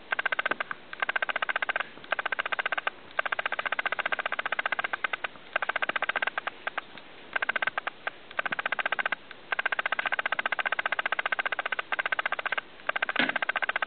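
Puppy licking at a hand: fast runs of wet clicking in spells of one to a few seconds, broken by short pauses.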